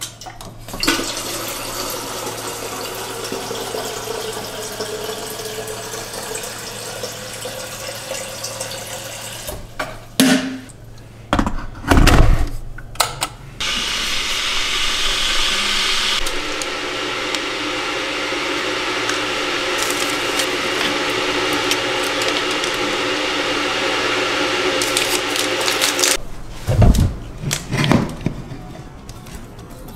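Tap water running steadily into a kettle at the kitchen sink, followed by a few clunks and knocks. Then comes a long steady hiss of the kettle heating the water, and a few more clunks near the end as the kettle is lifted to pour.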